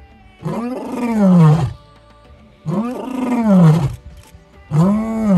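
Male African lion roaring: three long, loud roars about a second apart, each rising and then falling in pitch.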